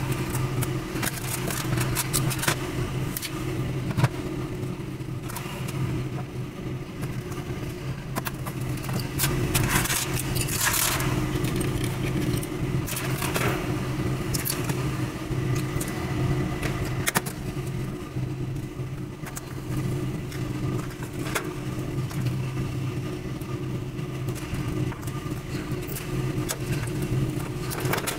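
A steady low motor hum runs throughout, with scattered light clicks and rattles from wires and pliers being handled in a metal light fixture.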